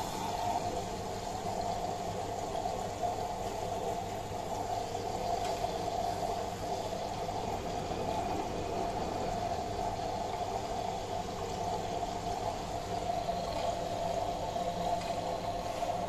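LG DirectDrive 8 kg front-loading washing machine running an empty Rinse+Spin cycle with a little detergent to wash its drum: water and suds sloshing in the turning drum over a steady machine hum.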